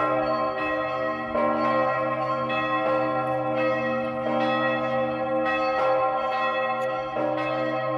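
The Augustin bell, a very large swinging church bell, pealing: its clapper strikes about once every second and a half, about five strokes here, each one ringing on under a steady deep hum into the next.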